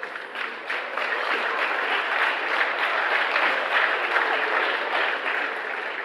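Audience applauding, building over the first second or two and easing off near the end.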